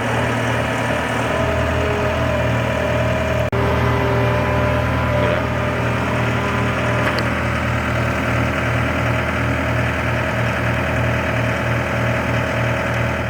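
Skid steer engine running steadily at a constant speed, with a low, even pulse; it drops out for an instant about three and a half seconds in, then runs on until it cuts off suddenly at the end.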